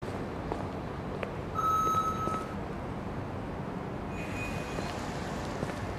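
Walk-through security metal detector giving two electronic beeps: a louder, longer beep about a second and a half in, and a shorter, higher one about four seconds in. Under them runs a steady low hum, with a few faint footsteps.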